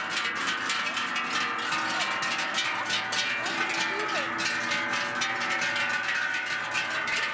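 Many cowbells clanging together, constant overlapping ringing from a herd of cattle on the move, with people's voices in among them.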